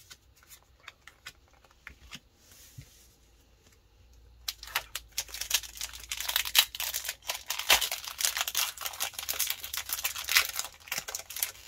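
Pokémon booster pack's foil wrapper crinkling and being torn open. A few soft clicks of card handling come first, then a dense crackle starts about four and a half seconds in and runs until near the end.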